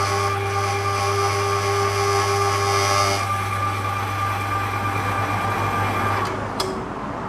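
Electric motor-driven meat grinder running with a steady hum. Its tone shifts about three seconds in, and the motor stops about six seconds in, followed by a short click.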